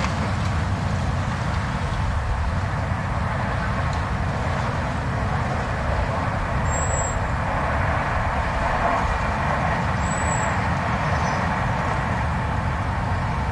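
Blizzard wind blowing steadily, a dense rushing howl over a deep low rumble. Two brief thin high whistles cut through, about halfway through and again a few seconds later.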